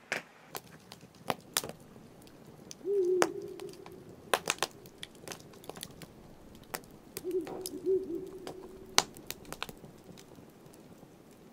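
Campfire crackling with scattered sharp pops, and twice a low, steady hooting tone about a second long, once a few seconds in and again past the middle.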